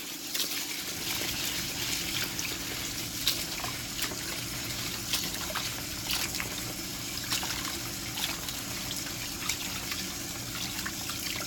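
Tap water running and splashing as parboiled rice is washed by hand to get the dirt out, with scattered small splashes and clicks through the steady flow.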